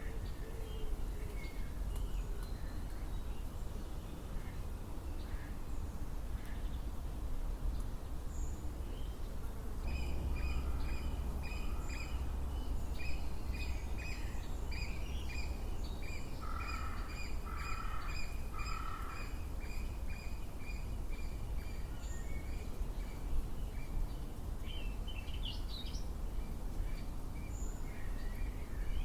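Birds singing, with a long run of rapid repeated chirping notes through the middle, over a steady low rumble.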